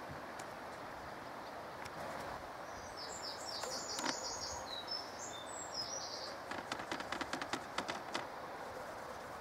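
A songbird sings a quick run of short, high chirping notes about three seconds in, over a steady outdoor hiss. Later comes a rapid run of light clicks and taps lasting about two seconds.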